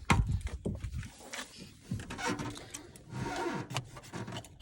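Scattered clicks and knocks with rustling in between: handling noises as the mechanic picks up the key and moves to the truck.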